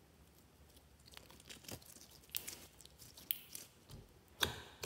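Slime being squished and mixed by hand, giving irregular sticky crackles and pops that start about a second in and get louder near the end.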